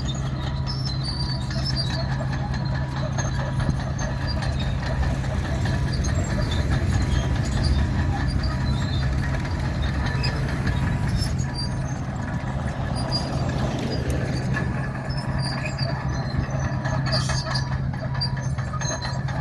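Komatsu D61 crawler bulldozer's diesel engine running steadily under load, with squealing and clanking from its steel tracks as it breaks up and pushes an old bituminous road surface.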